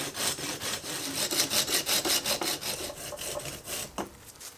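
Small pruning saw cutting through a living Chinese elm trunk, rasping back and forth in quick, even strokes to take the top off the tree. The strokes stop about four seconds in with a short click.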